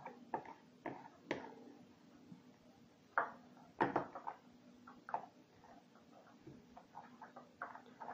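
A spoon knocking and scraping against a bowl in scattered clicks and taps as slime of white glue and liquid laundry detergent is stirred.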